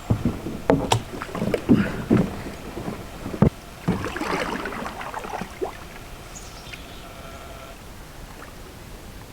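Several knocks against a Kevlar canoe's hull in the first few seconds, then a short rush of water, as of a paddle stroke, about four seconds in.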